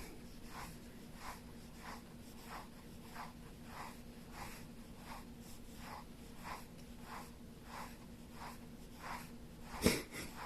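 Soft rhythmic scratching or rasping, about one and a half strokes a second, over a faint steady hum, with a single sharp click near the end.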